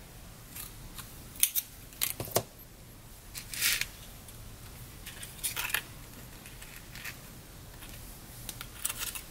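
Small handling sounds of paper-crafting at a table: irregular short clicks and rustles of card, paper and small tools, with a few slightly longer scrapes.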